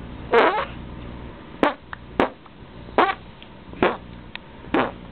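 Fart-like noises made with the collarbone: six short bursts, each well under half a second, coming roughly every second.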